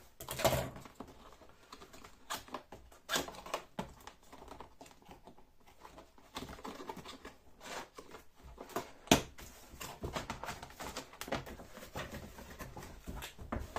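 A cardboard box being unpacked. Packing tape is cut and peeled, then the flaps and a moulded-pulp insert are shifted, making irregular scrapes, rustles and clicks, with one sharp knock about two-thirds of the way through.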